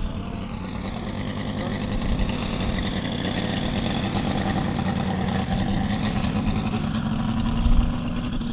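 Five-cylinder Valach VM-250 R5 radial engine of a half-scale RC Bücker Jungmeister running in flight as the model passes low. The pitch rises slowly and the sound grows louder toward the end.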